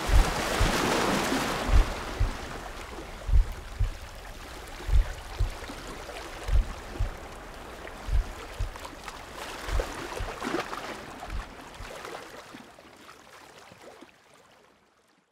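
Small waves sloshing and lapping at the sea surface right at the camera, with irregular low thumps as the water knocks against it. The sound fades out near the end.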